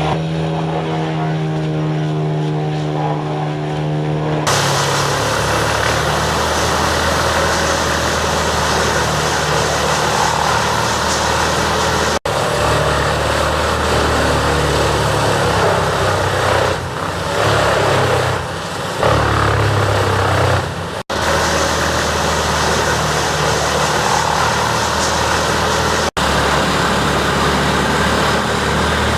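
Wood chipper engine running at a steady pitch, then a loud, dense grinding and shredding noise over the engine as material is fed through. The sound breaks off abruptly three times.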